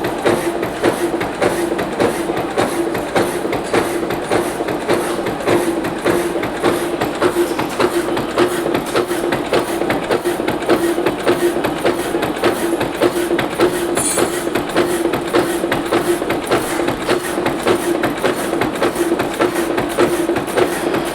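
Horizontal metal-cutting bandsaw running: a steady hum with fast, regular ticking that keeps an even rhythm.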